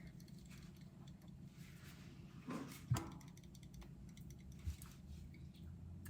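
Quiet kitchen with faint handling sounds: a few light clicks, a brief sound and a sharp knock about three seconds in, and a soft thud a little before five seconds.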